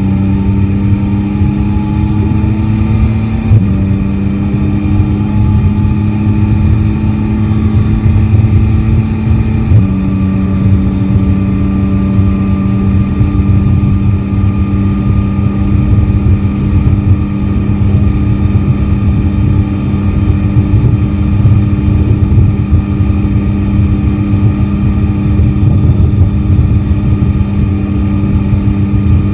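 Yamaha Tracer 9 GT's inline three-cylinder engine pulling through the gears. Its note rises and steps down twice in the first ten seconds as the rider shifts up, then holds steady at cruise over wind and road rumble.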